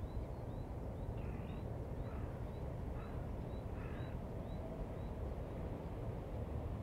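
Birds calling over a steady low outdoor rumble: a short high chirp repeated about twice a second for the first five seconds, with four harsher, lower calls about a second apart in between.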